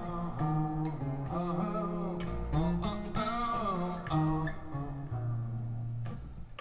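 Guitar-led music playing through Mark Audio Alpair full-range drivers in a back-loaded horn speaker cabinet.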